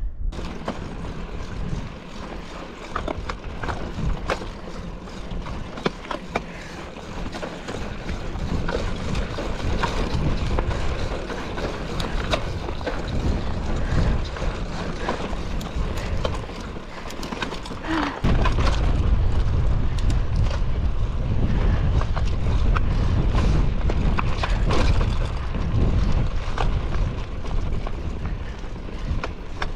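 Mountain bike rolling over a rough dirt trail, with the tyres crunching and the bike clattering and rattling over rocks. Wind rumbles on the microphone and gets heavier about two-thirds of the way in.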